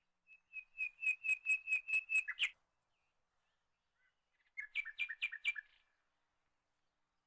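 A small bird singing: two phrases of quick, evenly repeated high chirps. The first lasts about two seconds; the second is shorter and comes about four and a half seconds in.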